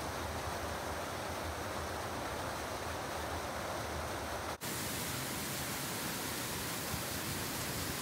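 Steady rushing water of a waterfall. About four and a half seconds in it breaks off for an instant and comes back brighter and hissier.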